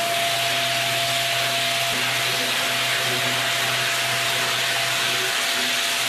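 Random orbital sander, connected by hose to a dust extractor, running over the wooden strip hull of a canoe: a steady hiss with a constant whine, unbroken throughout.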